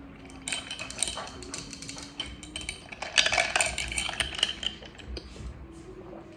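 Dishes and cutlery clattering: a quick run of clinks and knocks, busiest about three seconds in.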